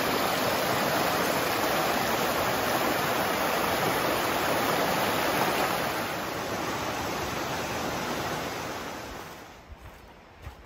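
River rapids rushing steadily over rocks, a dense, even roar of white water that fades away about nine seconds in.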